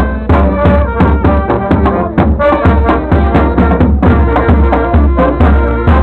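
A street band with brass and drums playing, held notes over a steady drum beat.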